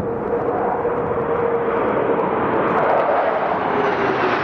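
A formation of three fighter jets flying over, their jet engines making a steady loud noise. A whine in the noise slowly drops in pitch as they pass.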